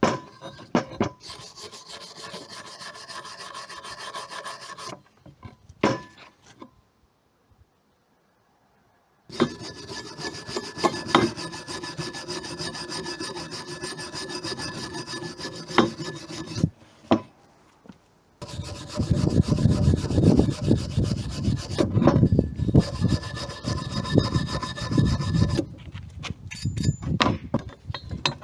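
Abrasive paper rubbing back and forth on thick aluminum, scouring it down to bare, shiny metal ready for welding. The rubbing comes in several stretches broken by short gaps, and the last long stretch is louder and heavier.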